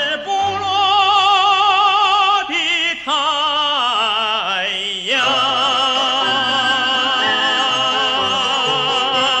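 A solo singer in an operatic style, with instrumental accompaniment, sings the closing line of a Chinese revolutionary song with strong vibrato. About five seconds in, the voice sweeps up into a long held final note.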